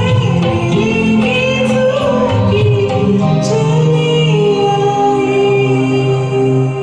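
Woman singing a Hindi film song over a karaoke backing track, the song closing on a long held note that dies away at the end.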